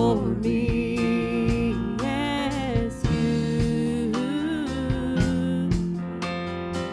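Worship song played live, with guitar accompaniment and a sung melody line that bends and glides between held notes.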